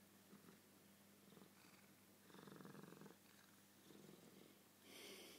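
Oriental cat purring faintly in short bouts.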